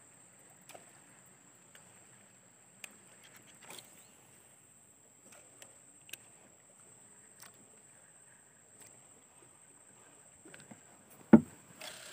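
Quiet ambience on a small fishing boat on a river: scattered light clicks and knocks over a steady faint high whine, then one sharp, loud knock near the end followed by a brief rustle.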